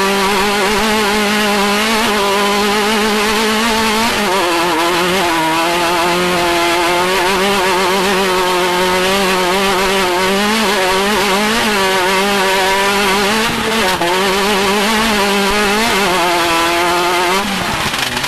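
Off-road race vehicle's engine running hard at high revs, its pitch wavering up and down with the throttle, then falling away near the end.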